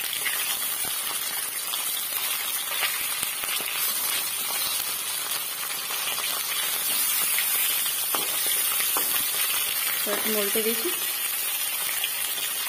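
Fish steaks shallow-frying in hot refined oil in a kadhai: a steady sizzling hiss with small crackles and spits throughout.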